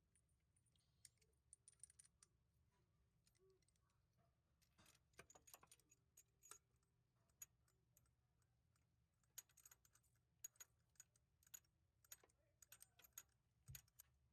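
Faint, irregular light metallic clicks and taps from small hand tools and spark plugs being handled, with a cluster of rapid clicks in the second half.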